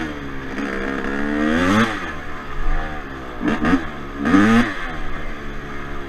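Yamaha Blaster's single-cylinder two-stroke engine being ridden through sand, revving up sharply twice (about two seconds in and again about four and a half seconds in) and dropping back between.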